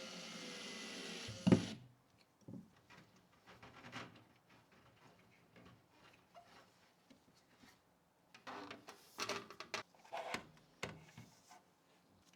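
A steady whir stops abruptly about a second and a half in with a loud knock. Scattered light clicks, taps and rubs of computer parts being handled follow, busiest near the end.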